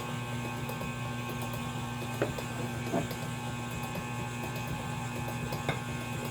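Electric mixer running steadily as it beats pound cake batter, with a few faint taps.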